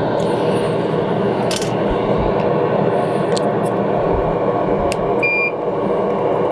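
Steady drone of a solder fume extractor fan, with a few light clicks and a short high electronic beep about five seconds in.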